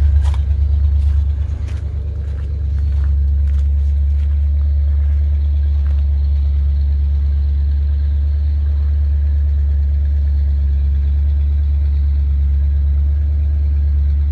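1986 Fleetwood Southwind motorhome's engine idling with a steady low hum, a little uneven for the first couple of seconds before it settles.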